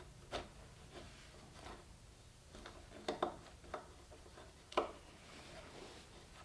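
Scattered light knocks and clicks of electrical cable and hand tools being worked against a wooden bench frame, as the cable is pulled through a channel; a quick cluster of sharper clicks comes about three seconds in and a single sharp knock near five seconds.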